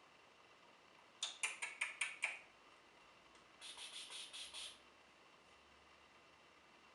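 Scratching: a quick run of six sharp scratches about a second in, roughly five a second, then a softer scratching rustle lasting about a second.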